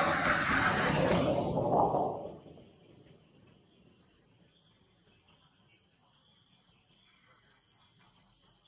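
Steady high-pitched insect drone, with a short chirp repeating about once a second from midway on. A loud rushing noise at the start fades out about two seconds in.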